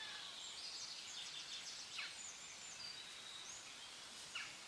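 Faint outdoor ambience: a low steady hiss with a few short, high bird chirps.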